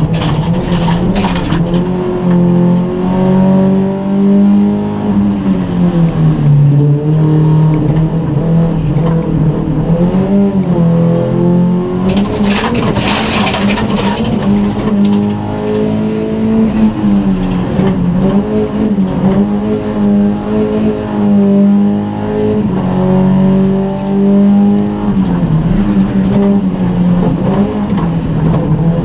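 Rallycross car's engine heard from inside the cabin, revving hard and dropping in pitch again and again at gear changes and lift-offs. About halfway through comes a few seconds of gritty noise from gravel under the tyres and against the underbody.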